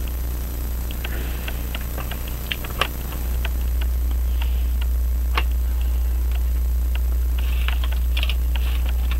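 Irregular light clicks and taps of metal clock-movement parts being handled and fitted together, over a steady low hum.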